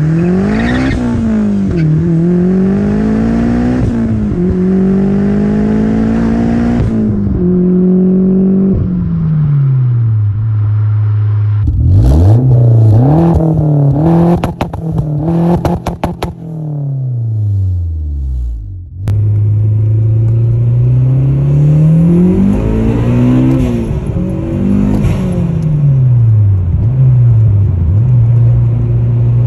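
Turbocharged 2008 Honda Civic Si's 2.0-litre four-cylinder through a 3-inch exhaust with a Rev9 muffler and resonator. It accelerates hard, the engine note climbing and dropping back at each gear change. It is then revved in short blips and settles to a steady drone between further rises in revs, with abrupt breaks where the sound cuts off and restarts.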